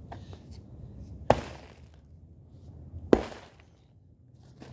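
Sledgehammer dropped onto concrete blocks, two sharp impacts a little under two seconds apart, each with a short ring after it.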